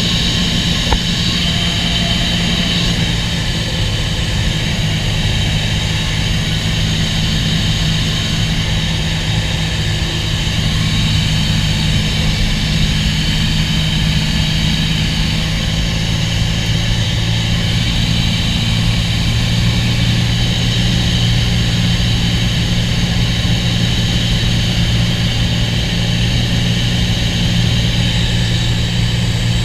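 Cessna 206 single-engine piston propeller aircraft in flight: a steady engine and propeller drone.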